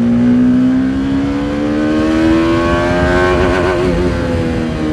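TVS Apache RR310's 312 cc single-cylinder engine through its stock exhaust, pulled hard under acceleration. The engine note climbs steadily for about three seconds, wavers briefly, then falls gradually as the throttle eases.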